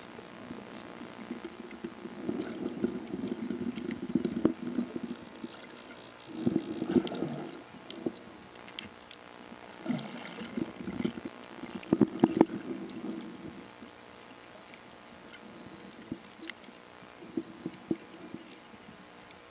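Muffled underwater sound from a camera in the water during a snorkel swim: irregular swells of water movement from swimming strokes, with a few sharp clicks and knocks, the loudest a quick cluster a little past the middle. A faint steady high whine runs underneath.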